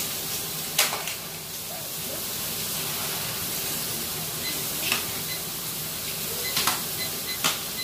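Thick bone-in ribeye steak searing in hot oil in a cast iron pan: a steady sizzle with a few sharp spattering pops. Near the end come several faint short beeps as a timer is set on the microwave keypad.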